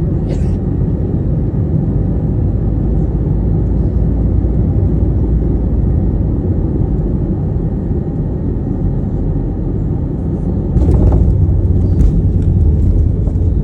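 Airbus A321 landing: a steady low rumble that grows louder about eleven seconds in, with a brief hiss near the start and a few faint clicks.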